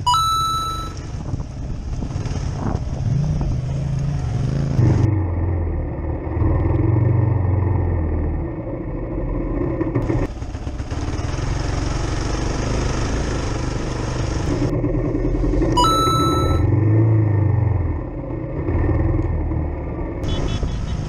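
Kawasaki KLR 650's single-cylinder four-stroke engine revving up and down repeatedly while riding an off-road dirt track, with rough wind and terrain noise. Two brief high squeals, one right at the start and one about three-quarters of the way through.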